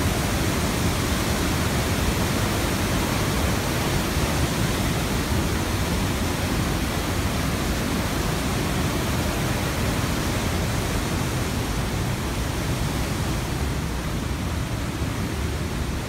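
Waterfall rushing steadily: swollen, muddy rainy-season water pouring over a wide rock ledge in a dense, unbroken rush.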